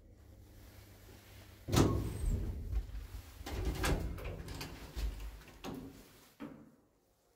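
Old ZREMB lift running with a low hum, then a loud clunk about two seconds in and a run of knocks and rattles from its car doors and mechanism, with a last couple of knocks near the end.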